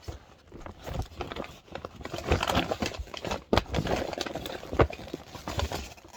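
Handling of a paper greeting card and its envelope: rustling with irregular knocks and clicks as the card is taken out and opened.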